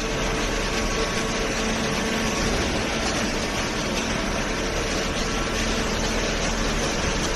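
Hydraulic power unit of a vertical baling press running: a steady mechanical hum with a faint constant tone.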